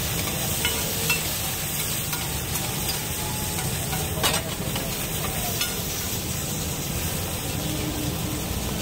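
Metal spatula stirring and scraping chopped vegetables frying on a large flat iron griddle, with a steady sizzle. There are occasional scrapes and clicks of the spatula on the plate, the sharpest about four seconds in.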